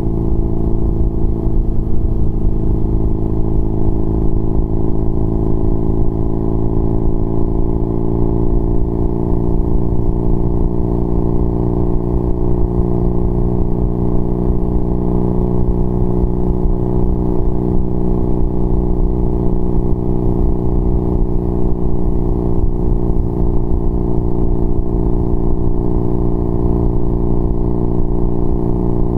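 BMW R nineT Pure's 1170 cc boxer twin running steadily at highway cruising speed through a Competition Werkes slip-on exhaust with a 1.5-inch dB killer fitted.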